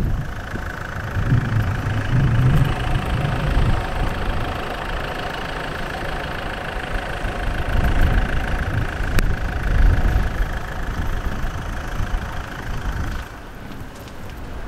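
A vehicle engine idling steadily, dropping away about thirteen seconds in, with wind rumbling on the microphone.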